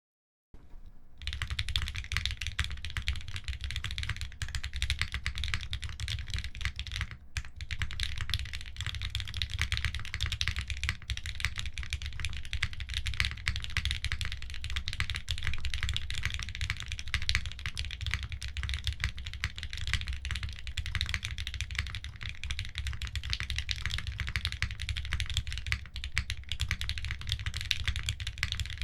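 Continuous fast typing on a custom 60% HHKB-layout mechanical keyboard (Frog Mini) with Gateron CJ linear switches, an aluminium plate and GMK keycaps: a dense stream of key clacks. It starts about half a second in.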